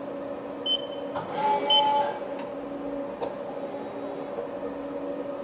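Amada HDS-8025NT CNC press brake running a program: a steady, quiet machine hum, with short whines as the CNC back gauge moves and a couple of light clicks about a second and three seconds in.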